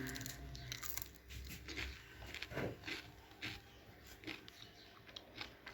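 Faint chewing and crunching of food up close, with scattered small irregular clicks and smacks.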